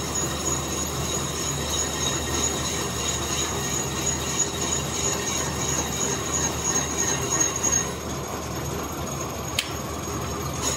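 A machine running steadily, a hum with a high-pitched whine over it; the whine stops about eight seconds in. A single sharp click comes near the end.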